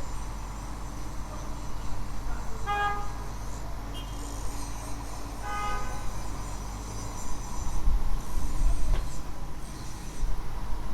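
Steady city traffic rumble with two short horn toots about three seconds apart, and the rumble swelling later on.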